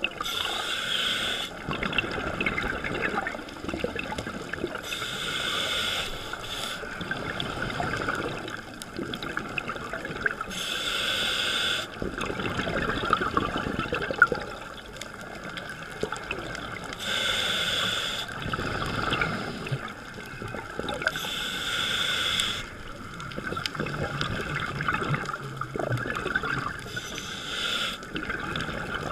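Scuba diver breathing through a regulator underwater, heard through a camera housing: a burst of hissing and bubbling comes every four to six seconds, over a steady muffled water noise.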